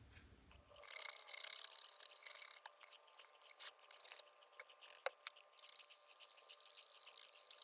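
Near silence, with faint scattered small clicks and ticks; one sharper click about five seconds in.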